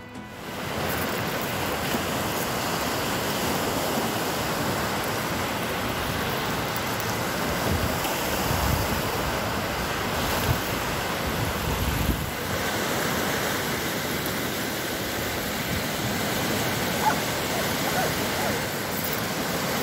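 Rough, wind-driven lake waves breaking and washing on a gravel shore, a steady rushing surf sound, with wind gusting on the microphone. It starts sharply about half a second in.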